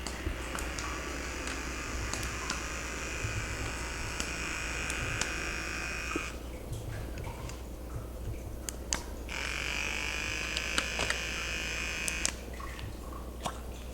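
A small electric device buzzing steadily. It stops about six seconds in, starts again about three seconds later and stops near the end, with light clicks and knocks throughout.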